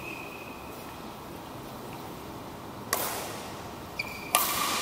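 Badminton racket hits on a shuttlecock during a rally: a light hit with a short ringing ping at the start, then sharp hits about three seconds in and about four seconds in, the last one the loudest, each followed by the hall's echo.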